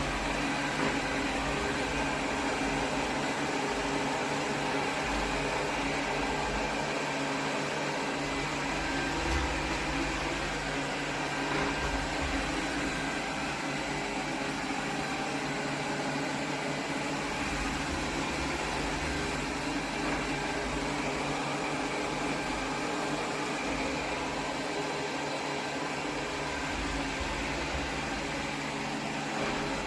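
Suction fan of an iRobot Roomba Combo 2 Essential vacuum system running steadily, with a whine of several steady tones over even motor noise and an uneven low rumble. It switches on abruptly and shuts off abruptly.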